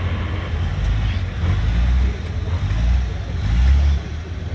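Competition trial truck's diesel engine working hard under load as the truck climbs a steep dirt bank, its revs surging and easing several times.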